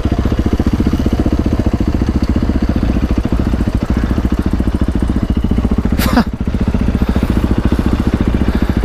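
Dirt bike engines running at low revs with a steady, rapid pulse as the bikes roll slowly and come to a stop. A short sharp squeak cuts in about six seconds in.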